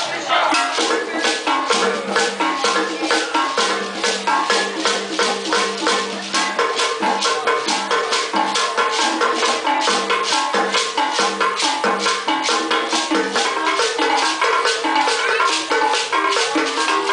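African percussion ensemble playing live: gourd shakers and hand drums keep a fast, even beat of about five strokes a second, with held pitched notes moving step by step over it.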